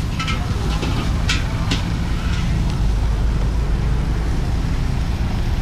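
Wok cooking at a street stall: a steady low rumble under a few sharp clinks of a metal spatula against a wok in the first two seconds.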